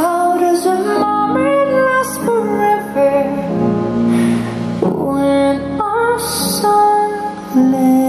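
Soundtrack of the nighttime castle projection show: a woman singing long held notes over orchestral backing.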